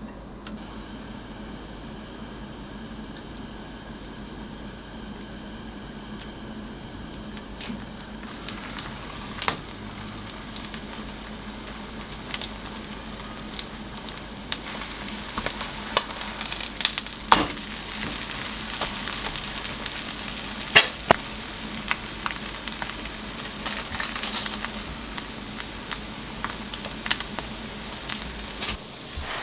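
Food frying in a hot pan: steady sizzling, with sharp pops and crackles that begin about eight seconds in and come thicker from there.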